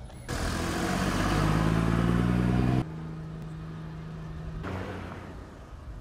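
A motor vehicle's engine running close by, loud for about two and a half seconds and then cut off abruptly, followed by a fainter steady engine hum.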